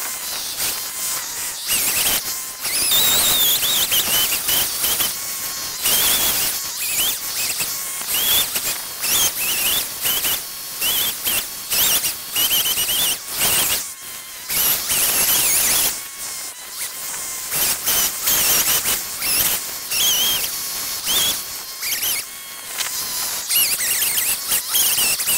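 Chainsaw revving up and down in short bursts, about one a second, while carving into a fresh pine log, with a high wavering squeal through it.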